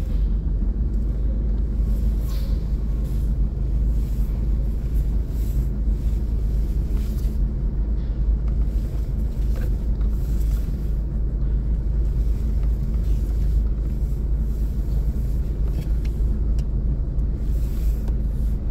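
Steady low engine rumble heard from inside a car cabin while it creeps along a ferry's enclosed car deck.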